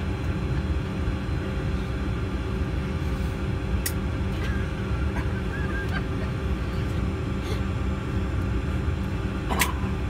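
Steady low hum of an airliner cabin, its air system running while the plane waits at the gate, with a few steady tones held in the hum. A sharp click sounds about four seconds in and another near the end.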